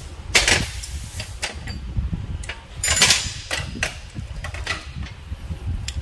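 Irregular clatter and rustling of hand tools and parts being handled, in short bursts, the loudest just after the start and around three seconds in, over a steady low rumble.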